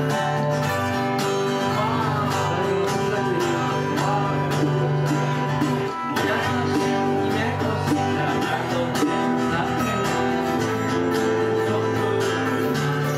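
Live folk band playing an instrumental passage: acoustic guitars strumming with keyboard chords held underneath and a melody line gliding over them.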